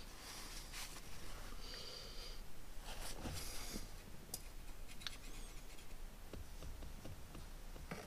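Faint rubbing and scraping as old RTV sealant is cleaned off the T-5 transmission's shifter mounting surface with a shop towel, with a few light clicks of metal.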